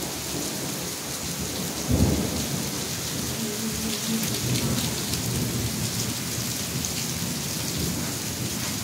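Heavy rain falling steadily. About two seconds in comes a clap of thunder, which rolls on as a low rumble for several seconds.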